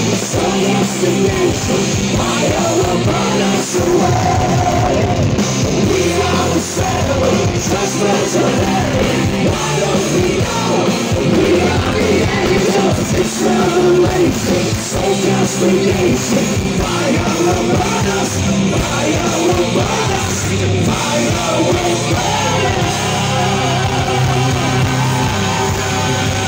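Live symphonic power metal band playing with several lead singers singing together over drums, guitars and keyboards. A long held note comes near the end.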